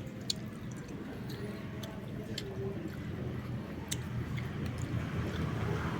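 A person chewing a mouthful of squid steak, with scattered small clicks over a steady low hum.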